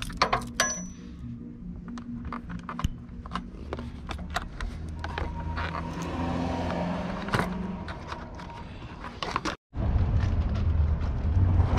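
Scattered clicks, knocks and rattles of hand tools and loose parts being handled while a motorcycle is stripped of its fairings. After a short break near the end, a steady low rumble takes over.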